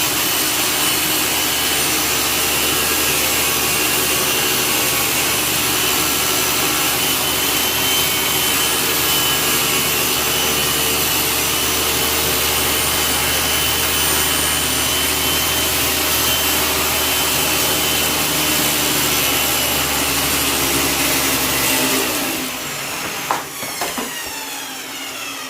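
Table saw with a roughly 60-tooth general-purpose blade running through plexiglass, a steady loud whine and hum. About 22 seconds in the saw is switched off and the blade winds down in falling pitch, with a couple of sharp knocks.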